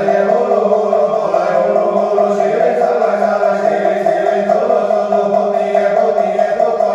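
Buddhist chanting, a slow melody of sung voices over steady held tones, running on without a break.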